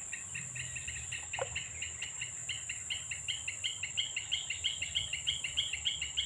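Rapid repeated chirping from a wild animal in the outdoor ambience, about five short two-note chirps a second, growing louder, over a steady high-pitched insect-like hum.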